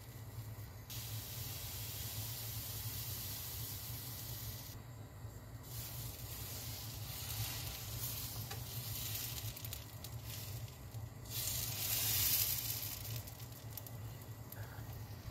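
Dosa batter sizzling on a hot non-stick pan as it is poured and spread in circles with a steel ladle. The sizzle breaks off briefly about five seconds in and is loudest around twelve seconds in, over a steady low hum.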